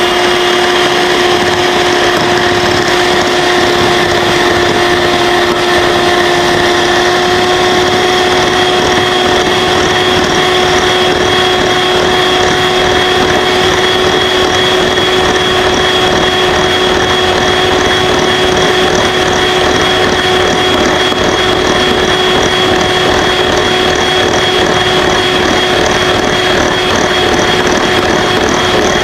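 Electric hand mixer running steadily at one speed, its beaters whipping instant coffee, sugar and a little hot water in a bowl into frothy whipped coffee. The motor's hum holds one pitch throughout.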